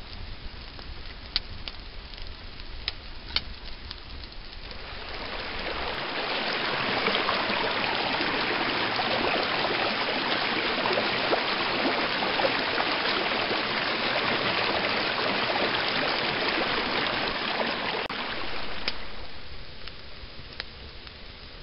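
A small wood fire crackling with a few sharp pops. About five seconds in, a rocky stream's steady rushing flow swells up and takes over as the loudest sound for some fourteen seconds, then fades back to the fire near the end.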